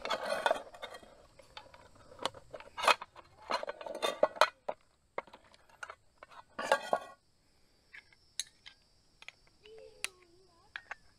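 Metal camp cookware of a small coffee kit being handled and set up: a run of sharp clinks and clatters, with a few short scraping rustles near the start, about 4 seconds in and about 7 seconds in.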